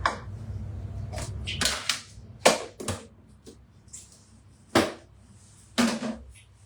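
A spatula knocking and scraping against the pan while chopped carrots are stir-fried: a handful of sharp knocks at uneven intervals. A low hum under them stops about two seconds in.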